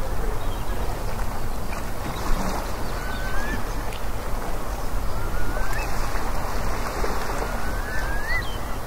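Steady rushing wind noise on the microphone, with short rising whistle-like chirps every couple of seconds.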